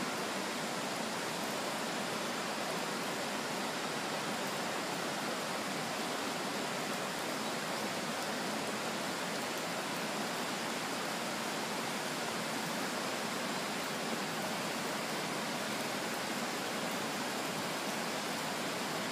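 Steady, unbroken rushing of water during a typhoon, an even noise with no breaks or changes.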